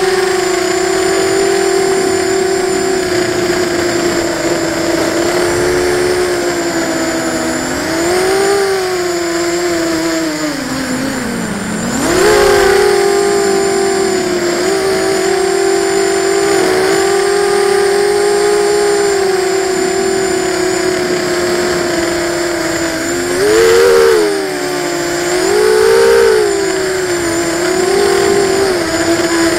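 QAV250 racing quadcopter's brushless motors and propellers whining, picked up by the camera riding on the quad. The pitch mostly holds steady, drops sharply about eleven seconds in as the throttle is cut, then jumps straight back up. There are further short surges in pitch near the end.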